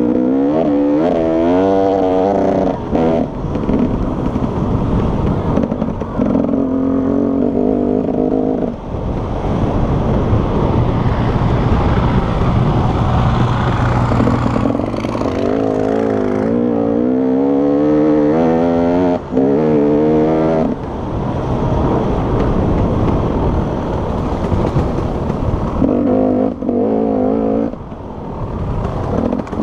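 Enduro motorcycle engine heard from on board the bike, running hard and revving up and down through the gears, its pitch rising and falling, with the throttle briefly shut several times.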